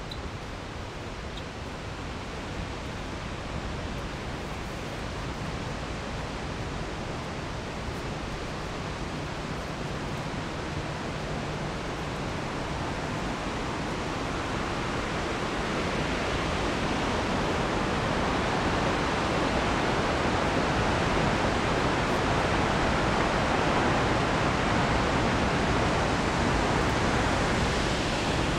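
Steady rush of falling water from a large waterfall, growing gradually louder as it is approached.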